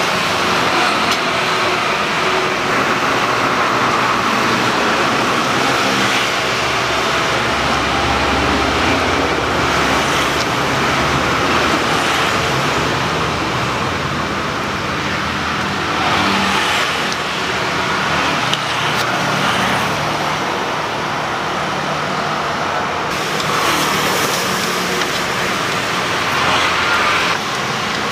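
Steady road traffic noise from passing vehicles, with a few swells as some pass closer.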